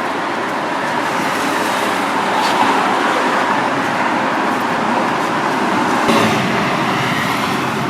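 City street traffic noise: road vehicles running and passing steadily, with two brief sharper sounds, about two and a half and six seconds in.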